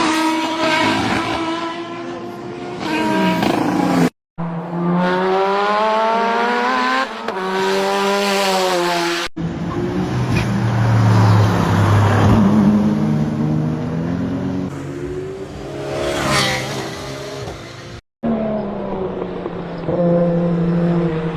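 High-performance car engines revving and running hard, pitch rising and falling, in several short clips cut together abruptly.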